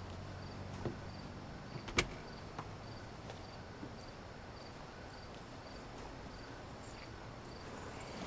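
Night ambience of crickets chirping faintly and evenly over a low steady hum, with a single sharp click about two seconds in.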